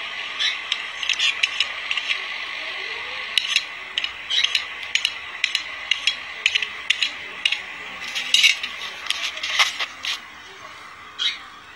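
Irregular sharp clicks, taps and scrapes of handling close to the microphone, some in quick clusters, over a steady hiss.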